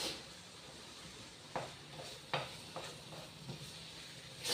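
Chopped onion sizzling in hot oil in a pan while a utensil stirs it, with several short scrapes and knocks against the pan and a louder knock near the end.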